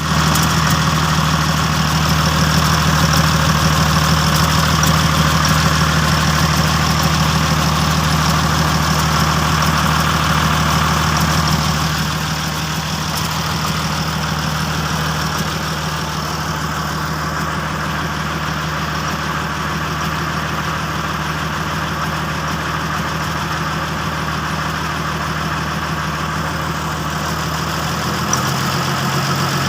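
TS200 single-cylinder diesel engine running steadily at idle. It gets a little quieter about twelve seconds in and settles to a slightly lower speed near the end.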